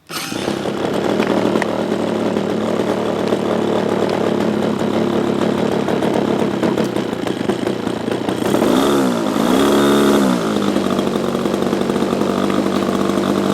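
O.S. 55 glow engine of a radio-controlled model plane running at a steady high pitch. About nine to ten seconds in, its pitch swings down and up twice, then settles back to the same steady run.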